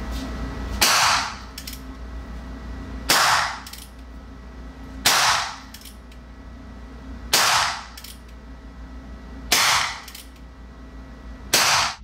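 Heritage Rough Rider .22 LR single-action revolver being fired six times, one shot about every two seconds, each crack followed by a short decaying tail.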